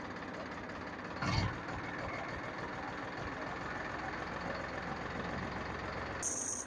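Powertrac 435 DI tractor's diesel engine idling steadily, with a single thump about a second in and a short hiss near the end.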